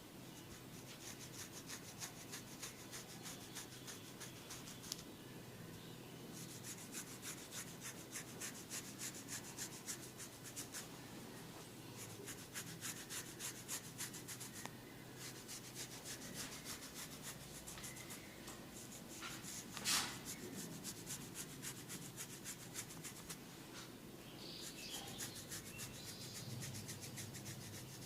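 Head massage: fast rubbing and scratching strokes over hair and scalp, coming in runs of quick strokes with short pauses between them. One sharper, louder sound comes about twenty seconds in.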